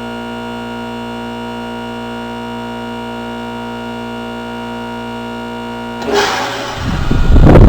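2008 Goodman heat pump's compressor humming steadily during a defrost cycle. About six seconds in, a sudden loud whoosh as the unit comes out of defrost and the reversing valve shifts, followed by a loud, rising rush of noise.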